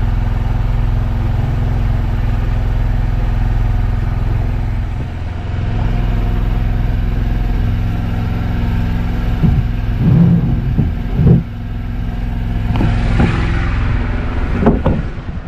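An engine on a fishing boat running steadily at an even speed. A few loud knocks come about ten seconds in, followed by clattering near the end.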